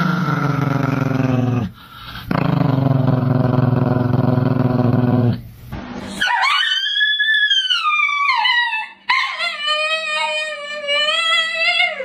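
A low, drawn-out growl twice in the first five seconds. Then, from about six seconds in, a husky howls in two long calls: the first high and falling away, the second lower and wavering.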